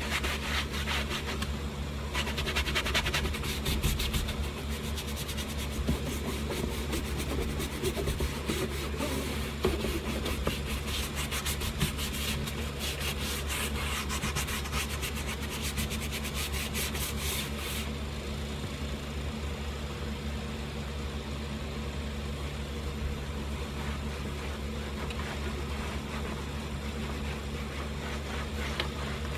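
Soft-bristled brush scrubbing a fabric car headliner in quick back-and-forth strokes, stopping about two-thirds of the way through. A steady low hum runs underneath.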